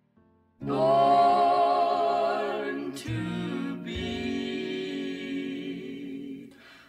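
Background music: voices singing sustained chords in harmony without accompaniment, with a slow vibrato. They come in about half a second in, change chord twice, and fade away just before the end.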